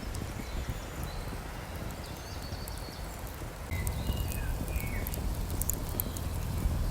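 Steady rain in a forest, with scattered sharp ticks of falling drops. A few short bird chirps come in the second half, and a low rumble swells about halfway through.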